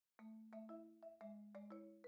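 Faint background music: a gentle melody of struck, ringing mallet-percussion notes, about four a second.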